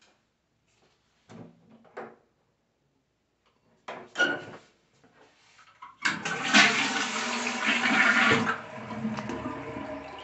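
Toilet with a close-coupled cistern flushing: a sudden rush of water about six seconds in, loudest for the first two seconds, then a quieter steady flow of water. A few short knocks come before it.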